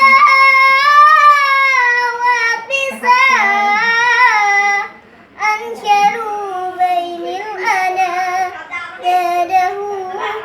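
A child singing an Arabic song solo, without accompaniment, in long ornamented held notes, with a short pause for breath about halfway through.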